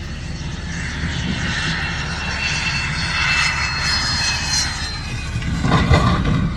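Airplane engine noise, a steady rush with a high whine that swells about three seconds in and fades, then a louder burst near the end.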